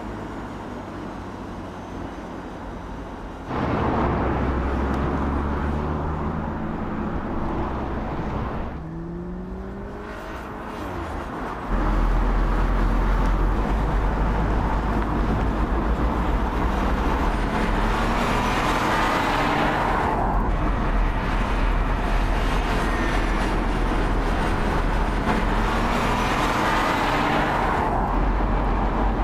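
Audi A3 Sportback driving on a road, its engine note climbing in short rising sweeps as it accelerates, over tyre and road noise. The sound comes in spliced segments that change abruptly, and twice in the second half a rush of tyre noise swells and cuts off as the car goes by.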